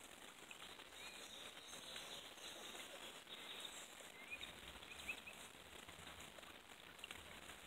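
Near silence: faint outdoor ambience with a few brief, faint bird chirps scattered through it.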